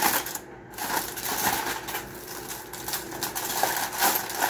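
Double layer of aluminum foil crinkling and rustling as it is cut and pulled open by hand with a knife, with a dense patter of small crackles, loudest near the start and again near the end.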